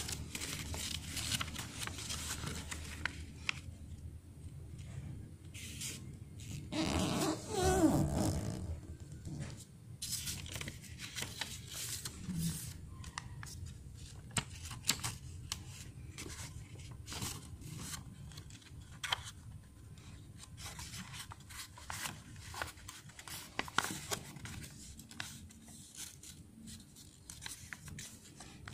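A sheet of origami paper being folded and creased by hand: irregular rustles and sharp paper crackles. About seven seconds in comes a brief louder sound with a wavering pitch.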